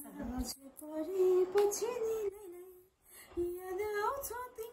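A woman singing a song aloud while it plays in her earphones, so she cannot hear her own voice; she holds long, wavering notes in two phrases with a short break in the middle.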